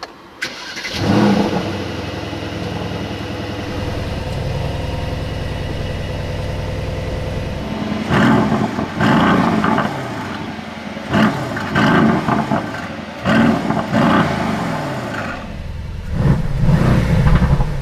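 Mercedes-AMG GLE 63 S's 4.0-litre twin-turbo V8 cold-started in race mode with the emotion start, flaring loudly about a second in and settling to a steady idle. From about eight seconds on it is revved in a string of short throttle blips with exhaust crackles on the overrun.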